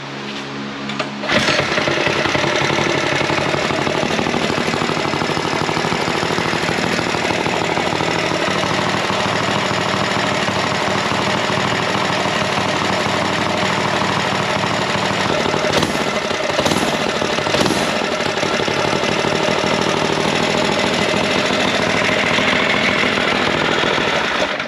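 Small single-cylinder mini bike engine starting about a second in, then running steadily with a fast, even beat and a couple of brief revs past the middle.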